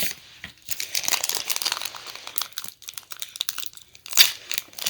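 Foil wrapper of a Pokémon booster pack crinkling as it is handled and torn open, with irregular crackles and one sharp, loud crackle about four seconds in.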